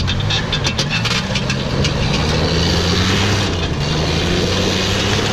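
A Toyota pickup truck's engine running hard as the truck spins donuts on gravel, its tyres scrubbing and throwing gravel, with sharp clicks of flung stones in the first second or so.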